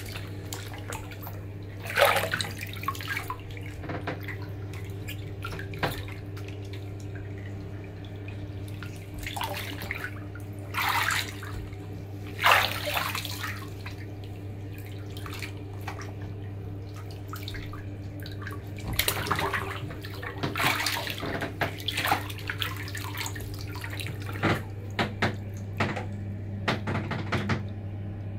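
Bathwater splashing and sloshing in irregular bursts as feet in soaked canvas sneakers move through a shallow tub, over a steady low hum.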